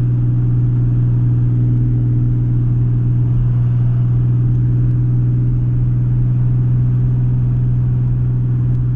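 Vehicle engine droning steadily at constant speed, with road rumble, heard from on board; the pitch and level hold steady with no revving.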